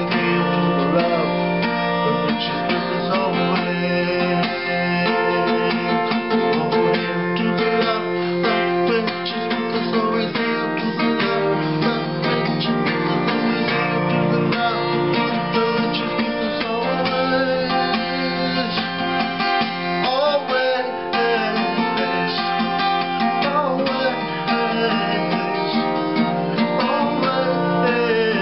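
Acoustic guitar strummed steadily.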